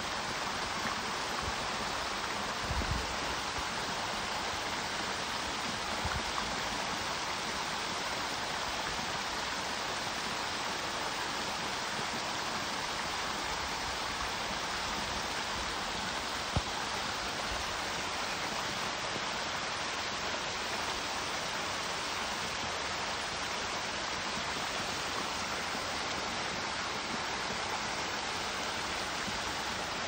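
Small waterfall spilling over a rock ledge into a shallow pool: a steady, even rush and splash of falling water. Two faint low bumps a few seconds in and one short sharp click a little past halfway.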